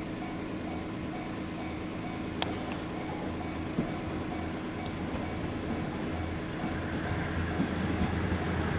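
Level-crossing warning bell ringing in a steady repeating beat while a diesel railcar approaches, its rumble slowly growing louder toward the end.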